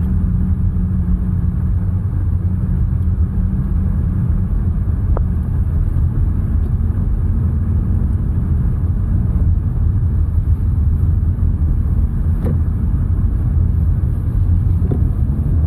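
Steady low rumble of a running car heard from inside its cabin, with a couple of faint knocks.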